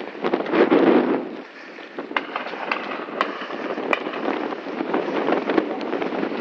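Wind rushing over a phone microphone, strongest about a second in, with a scatter of sharp clicks and knocks.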